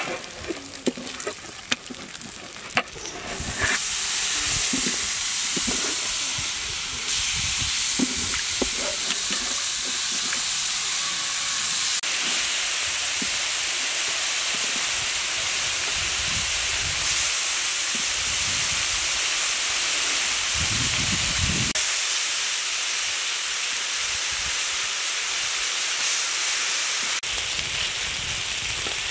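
Marinated chicken pieces frying in oil on a large flat iron griddle: a steady, dense sizzle. The first few seconds hold scattered knocks and clinks, and the sizzle swells up about three to four seconds in.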